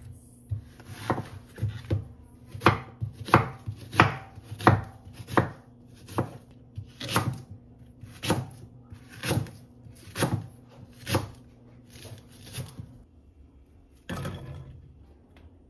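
Kitchen knife chopping green onion and onion on a wooden cutting board: about twenty sharp strokes, unevenly spaced, roughly one every half second to a second. The chopping stops near the end, followed by one brief, noisier sound.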